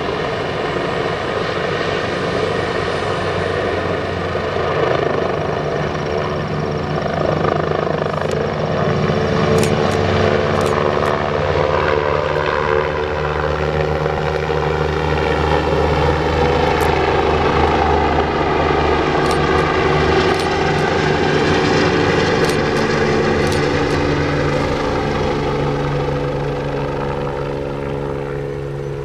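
A medical helicopter's turbine engines and rotors running loud and steady as it lifts off a rooftop helipad and climbs away, the pitch shifting partway through and the sound easing slightly near the end as it moves off.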